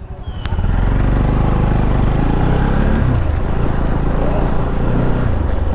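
Motorcycle engine pulling away from a stop and running under way, with wind noise on the microphone. The engine note shifts a couple of times, like gear changes.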